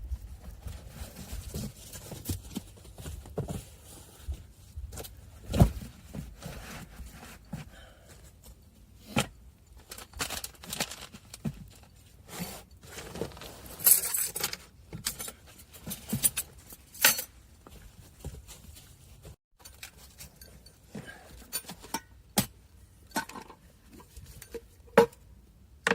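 Irregular clinks, knocks and rustles of things being handled, with a light metallic jingle now and then. A few louder knocks are spread through it, about six, fourteen and seventeen seconds in.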